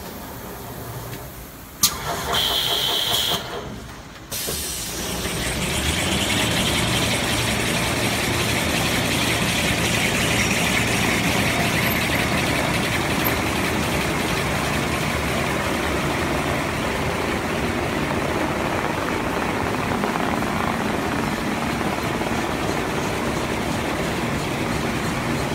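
Toilet tissue and kitchen towel rewinding machine starting up. A short high beep sounds, then about four seconds in the machine's noise builds over a couple of seconds into a steady, loud running noise with a hiss.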